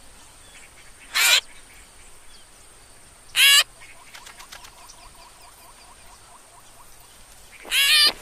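Cartoon bird chicks giving short squawking calls that slide down in pitch: one about a second in, another about three and a half seconds in, then several in quick succession near the end. Faint chirping of birds or insects runs underneath.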